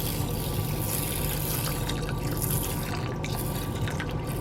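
Water being poured into a pot of rice, a steady splashing pour, over a low steady hum.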